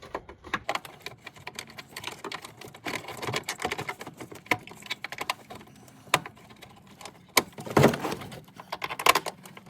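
Hands fitting a mounting bolt into a plastic fog light housing: irregular small clicks, taps and scrapes of metal and plastic, with a few louder knocks, the loudest about eight seconds in.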